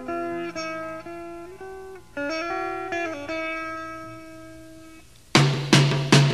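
Background music: a plucked guitar melody of held notes that fades away, then about five seconds in a new track cuts in with loud, evenly spaced hits, about three a second.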